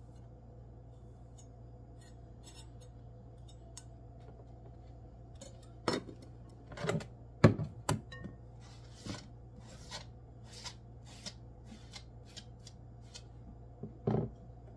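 A plastic cutting board tipped over a glass mixing bowl, and chopped cilantro scraped off it into the bowl. It starts with a low steady hum, then sharp knocks of the board against the bowl begin about six seconds in. A string of light scrapes follows, and a louder thump comes near the end.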